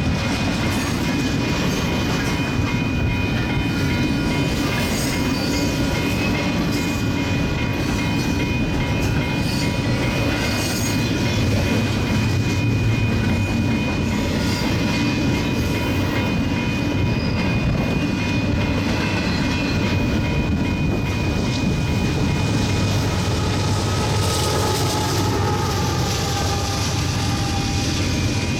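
Stack train rolling steadily past: a continuous rumble of steel wheels on rail with clickety-clack, and a thin steady high whine over it.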